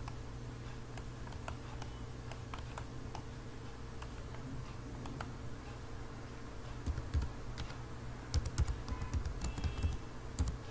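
Computer keyboard typing: a quick run of keystrokes in the second half as a file name is typed, after a few scattered clicks. A steady low hum runs underneath.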